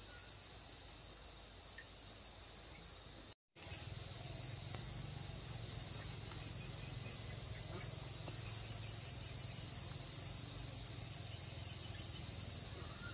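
Insects trilling in one steady high-pitched tone that cuts out for a moment about three seconds in, then carries on over a low rumble.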